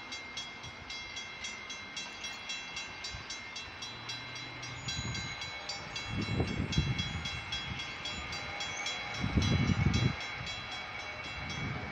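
Railroad grade-crossing bells ringing in a fast, even rhythm. Two louder low rumbles come in, one about six seconds in and one about nine and a half seconds in.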